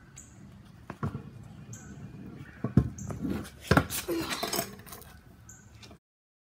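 Knocks and rattles of a kick scooter on a concrete driveway as the rider brings it up to the camera, then loud close handling noise at the microphone from about three and a half seconds in. A short high chirp repeats about once a second behind it, and the sound cuts off suddenly a second before the end.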